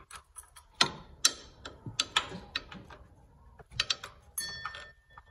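Hand ratchet clicking in short, uneven strokes with light metallic knocks as an upper control arm bolt is loosened.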